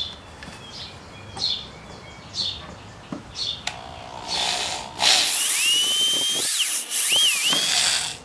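Electric hand drill with a new 1/8-inch bit starting up about five seconds in and grinding into a hardened steel shaft, which is hard to drill. A high whine rises and wavers under the noise of the bit cutting the steel.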